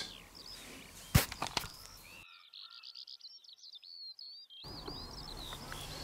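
Songbirds singing: many short, high chirps and whistles, densest in the middle, with a single sharp click about a second in.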